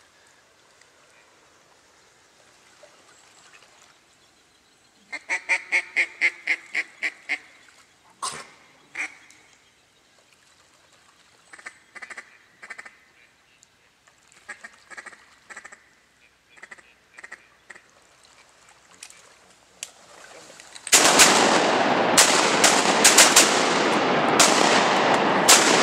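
Mallard duck calling: a run of about ten quacks fading off, then scattered shorter quacks and chuckles, typical of a hunter working a duck call to bring ducks in. About 21 seconds in, loud rapid shotgun fire breaks out and runs on in a dense string of blasts.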